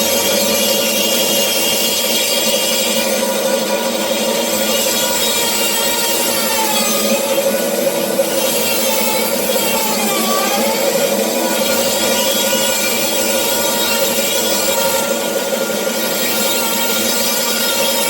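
Bandsaw running and cutting through a teak and holly board as it is turned on a circle-cutting jig, a steady hum with a rasping cut; the pitch dips briefly a couple of times around the middle.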